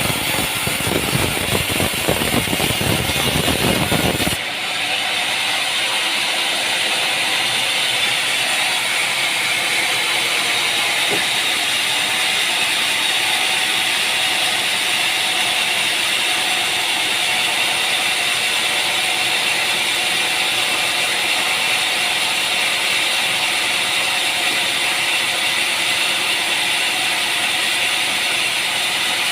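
Sawmill machinery running loudly. About four seconds in, a heavy, rumbling machine noise cuts abruptly to a steadier, higher-pitched mechanical noise with little bass.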